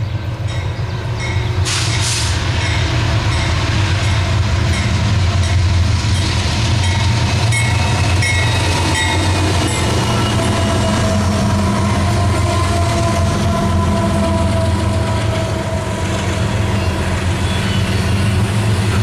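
A BNSF freight train with GE diesel locomotives, a Dash 9 leading, runs past with a heavy, steady engine rumble. The rumble grows louder about two seconds in as the locomotives close in. Double-stack container cars then roll by on the rails, with faint falling tones from about halfway through.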